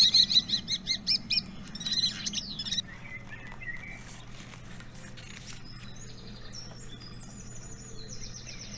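Starlings chittering: a fast run of high chirps for about three seconds, then fainter, sparser whistled calls.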